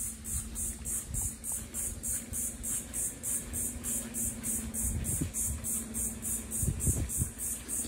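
A high-pitched insect chorus pulsing evenly, about three to four pulses a second, over a low steady hum, with a few soft thuds of footsteps about five and seven seconds in.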